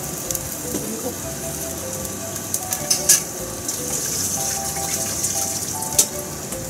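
A pot of water simmering on a gas stove, with a steady bubbling hiss and foam rising on the surface. Soft background music plays over it, and there are two sharp clicks, about three and six seconds in.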